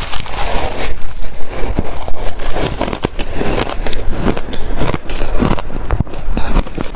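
Close-miked biting and chewing of shaved ice: a dense, continuous run of crisp crunches and crackles.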